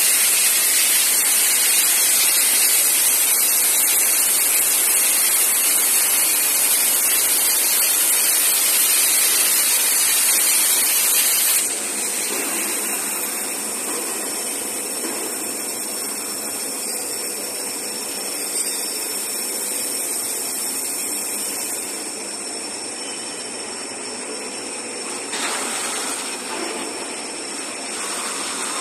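Cutting torch of a CNC beveling cutting machine hissing steadily as it cuts plate. The hiss drops suddenly in level about twelve seconds in and continues more quietly.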